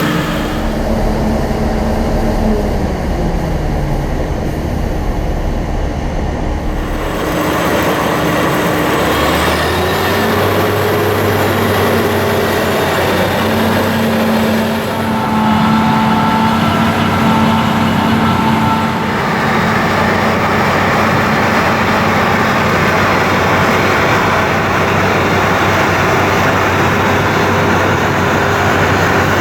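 CLAAS Lexion 750 combine harvester running under load in rice: its Caterpillar C13 six-cylinder diesel and threshing machinery make a loud, steady drone. The engine note shifts about eight to ten seconds in.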